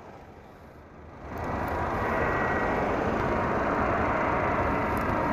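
Twin-engine jet airliner on landing approach: steady jet engine noise that swells about a second in, with a faint whine.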